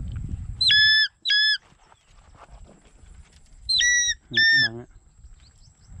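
Two pairs of short, shrill whistle blasts, each note flat and clear, the second pair about three seconds after the first.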